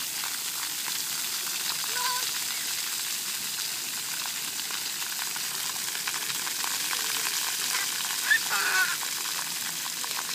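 Splash-pad ground fountain jets spraying water onto wet concrete: a steady hiss.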